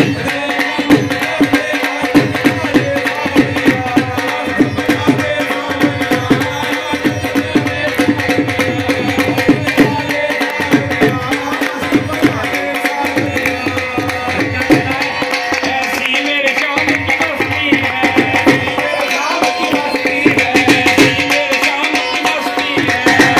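Indian devotional-style folk music: a hand drum beats a fast, steady rhythm over a held drone, with hands clapping along. Voices singing along grow stronger in the second half.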